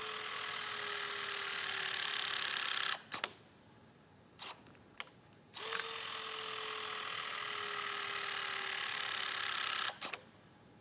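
Milwaukee M18 FORCE LOGIC 11T dieless utility crimper running its hydraulic pump through two crimp cycles. In each cycle the motor's whine slowly drops in pitch and grows louder as pressure builds. It cuts off abruptly when full pressure is reached and the ram retracts, with a few clicks between cycles.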